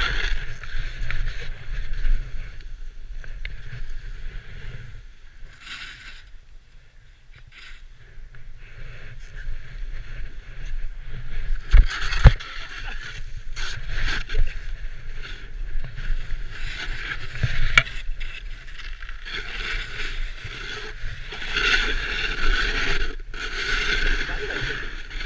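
Snowboard sliding and carving over snow, its edge scraping and hissing in surges as it turns, with wind rumbling on the camera microphone. A couple of sharp knocks come about twelve seconds in.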